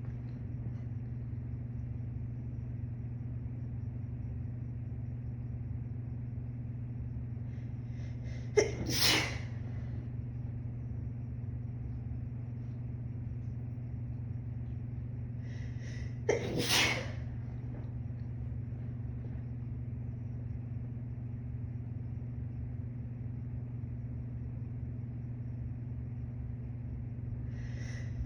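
A young woman sneezes twice, about eight and a half seconds in and again about eight seconds later. Each sneeze is short and sharp, with a brief intake of breath just before it, over a steady low hum.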